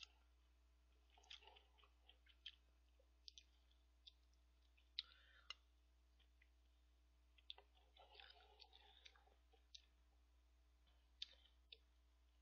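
Faint close-miked eating of instant ramen with rice from a paper cup: soft chewing and scattered clicks of the spoon and mouth, with the sharpest click about five seconds in.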